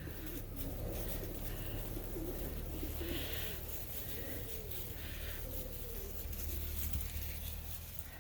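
Soft, wavering low cooing calls over a steady low hum, with a few faint scuffling noises.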